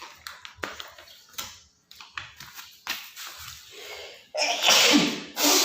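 Light clicks and knocks as parts of an unboxed angle grinder stand are handled, then a loud rustling swish lasting about a second, starting a little after four seconds in.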